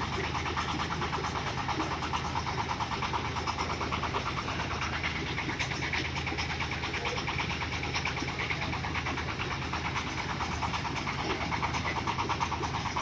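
Engine of a conveyor-fed corn sheller running steadily, with a fast, even rattle from the machine.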